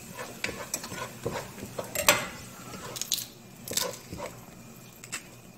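A wooden spoon stirring and scraping diced onions in a stainless steel pot, with irregular clicks and knocks of utensils against the pot; the loudest knock comes about two seconds in, and the sounds thin out near the end.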